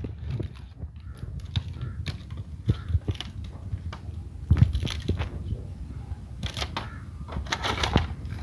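A small cardboard box and its plastic packet being handled and opened by hand: irregular rustling, crinkling and small clicks, a little louder about halfway through and again near the end.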